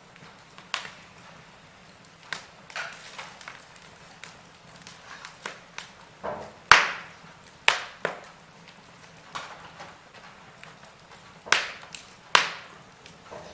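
Wood fire in a fireplace crackling, with irregular sharp pops and snaps over a faint hiss; the loudest pop comes about halfway through.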